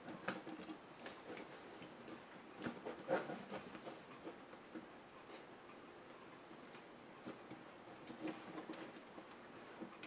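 Faint handling noise from a netbook's LCD panel and plastic screen frame being worked loose by hand: irregular small clicks and taps with light rubbing, a little louder just after the start and again about three seconds in.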